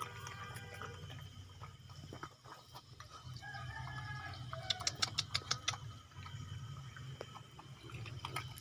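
A puppy eating wet rice mixed with fish from a plastic bowl, chewing and lapping, with a quick run of sharp clicks about five seconds in.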